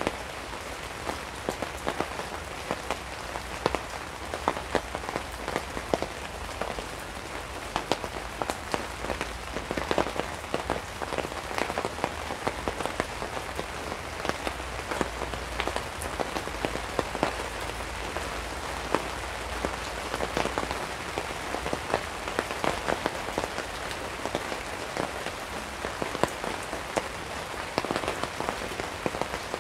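Steady rain falling on a tarp, with many single drops striking as sharp taps throughout.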